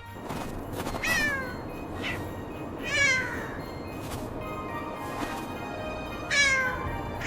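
A kitten meowing three times, each meow falling in pitch, over soft background music.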